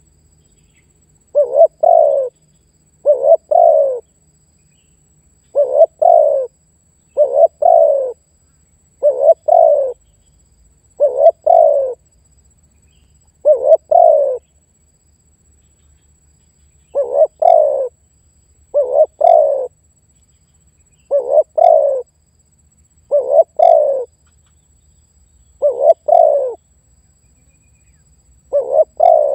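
Male spotted dove (tekukur) giving its territorial call, used to call and challenge a rival: a short cooing phrase of two quick notes, repeated about every one and a half to two seconds, with a longer pause around the middle.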